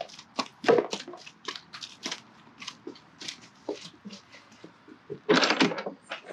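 Horse's hooves knocking on concrete as it walks into a stable, irregular steps a few times a second. About five seconds in, a louder scraping rustle as the wooden stable door is swung shut.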